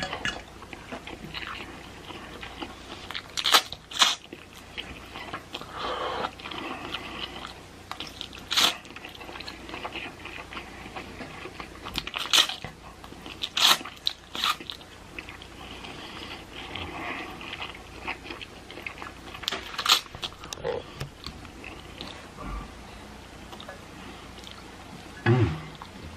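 A person eating hot, cheesy fire noodles close to the microphone: chewing, with short, loud, sharp mouth sounds every few seconds.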